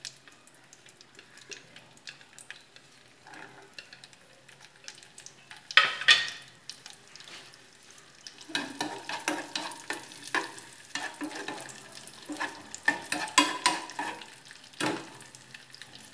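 Cashews and raisins frying in ghee in a small nonstick saucepan, sizzling faintly. About six seconds in come two loud knocks, then a spoon stirring them, with repeated scraping and clinking strokes against the pan through the second half.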